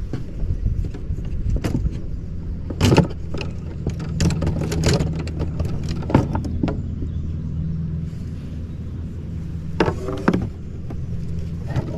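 Electric trolling motor (50 lb Minn Kota) humming steadily, with several sharp clicks and knocks scattered through it.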